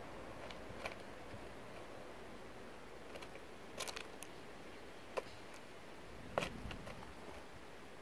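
Sparrow cracking sunflower seeds in its beak and pecking at the seed-covered log feeder: scattered sharp clicks over a faint steady hiss.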